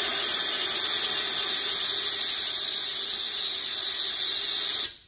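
Vacuum bleeder hissing steadily as it pulls air and ATF-4 fluid out of a Jeep Wrangler JK's power steering reservoir through a bleeder cap, purging air from the system after a steering gear replacement. The hiss cuts off suddenly near the end.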